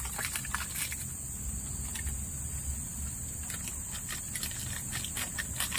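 Outdoor ambience: a steady high-pitched insect drone over a low, even rumble.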